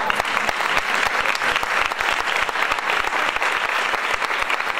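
Crowd applauding: dense, steady clapping with no break.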